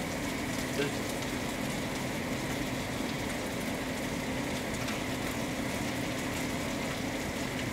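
Chicken frying in a stainless steel skillet over a gas burner: a steady sizzle with a low hum underneath, and a light click a little under a second in.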